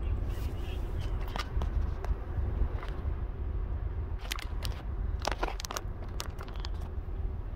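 Low steady rumble inside a car cabin, with scattered clicks and rustles from a phone being handled while filming.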